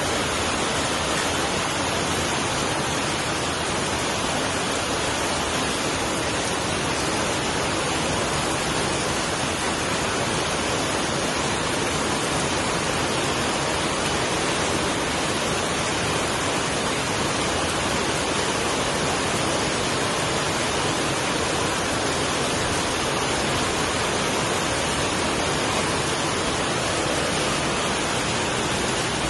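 Steady, even rain, a dense unbroken hiss with no single drops or thunder standing out.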